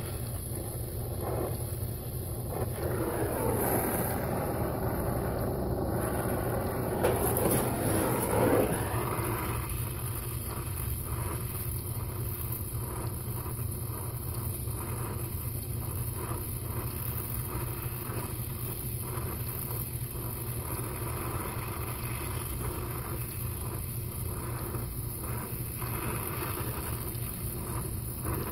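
Brazing torch flame burning steadily, a hiss over a low rumble, as copper refrigerant lines are brazed onto a replacement compressor's stubs. It is louder and more uneven for the first eight seconds or so.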